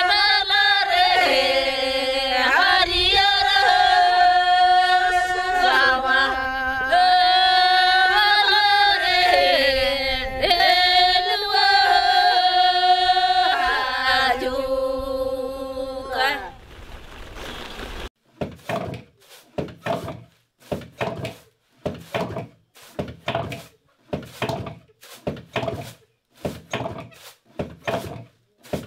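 Women's voices singing a slow melody together, with long held notes that step up and down; the singing fades out about two-thirds of the way in. An even run of dull thuds follows, a little more than one a second.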